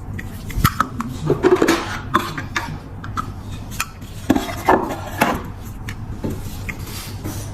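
Small metal clicks, taps and short scrapes of a metal lighter's case and hinge parts being worked with hand tools, several sharp clicks in the first five or so seconds.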